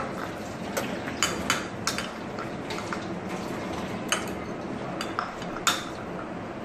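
A spoon and fork clinking and scraping against ceramic bowls in irregular, sharp clinks while noodles are eaten quickly, the loudest clink near the end.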